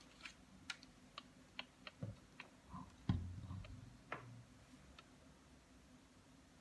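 Light clicks and knocks of something being handled, about a dozen scattered over five seconds, with one heavier thump about three seconds in.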